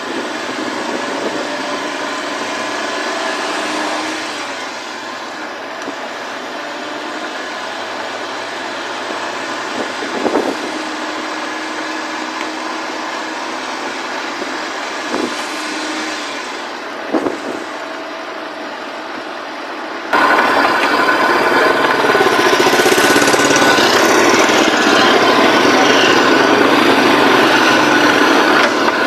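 A kei truck driving, heard from low beside its front wheel: steady engine and tyre noise with a few short knocks from bumps. About two-thirds of the way through, the sound jumps abruptly to a louder, rougher noise as the truck runs over gravel.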